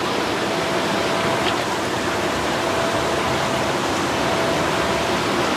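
Steady rush of running water, with one faint click of the knife on the cutting board about a second and a half in.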